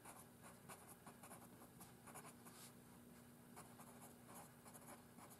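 Pencil scratching on graph paper in short, faint strokes as words are handwritten, over a faint steady hum.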